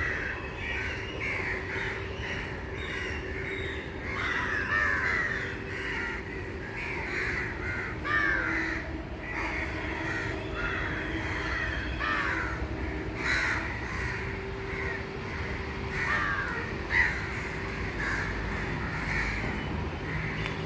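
Crows cawing again and again, several birds calling over one another, over a faint steady hum.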